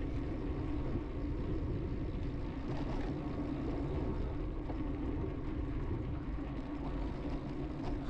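Steady wind rush and rolling noise from a bicycle being ridden along a paved riverside path, heaviest in the low end.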